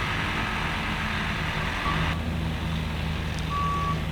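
Skid steer loader's engine running steadily as it works a grader blade, with one long reversing-alarm beep near the end.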